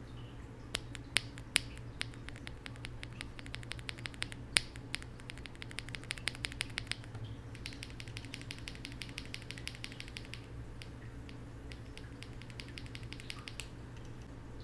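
A single Gateron Black Ink linear switch, lubed with Krytox 205g0 and filmed, pressed repeatedly by hand off the keyboard, clacking. A few loud single clacks at first, then long runs of rapid clicks, thinning out near the end.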